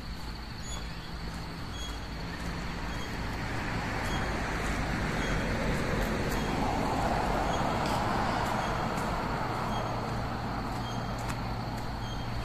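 A road vehicle driving past: its tyre and engine noise swells up, is loudest around the middle, then fades away.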